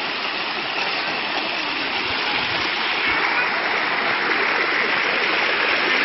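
Water rushing steadily down the cascades of a limestone waterfall, a dense even rush that grows slightly louder about halfway through.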